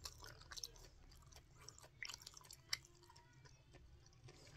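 Faint close-up chewing and mouth sounds of someone eating, with a few soft clicks.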